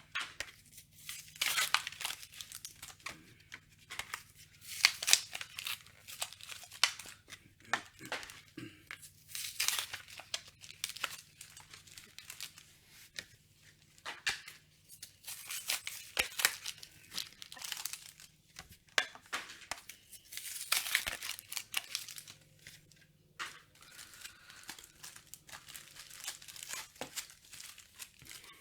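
Foil trading-card booster packs being torn open and their wrappers crinkled, in repeated short irregular rips and crackles, with cards being handled.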